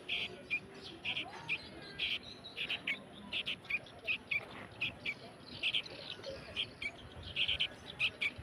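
Young sooty-headed bulbul chirping over and over in short, high calls, two to three a second at an uneven pace.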